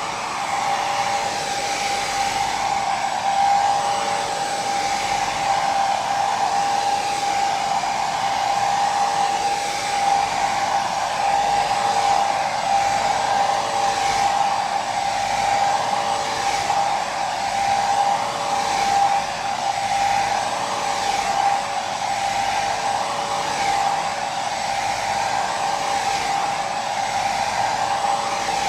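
Hair dryer running steadily: a continuous rush of air with a steady motor whine, used as white noise for sleep.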